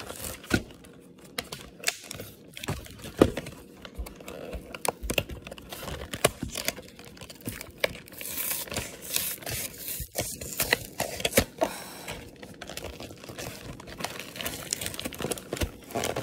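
A cardboard chocolate-bar sampler box being handled and opened: crinkling and tearing of card and wrapper, with scattered taps and clicks.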